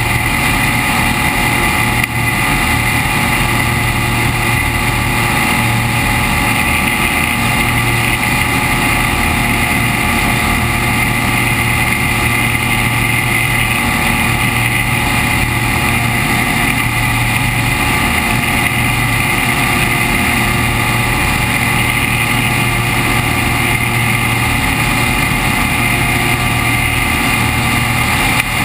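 SeaRey amphibian's pusher propeller engine running steadily in flight, a constant drone with rushing airflow noise over the microphone.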